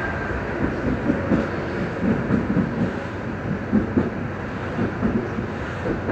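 Stadtbahn light rail car running at speed, heard from inside the car: a steady rumble of wheels on rails with irregular knocks and clatter as the wheels pass over the track.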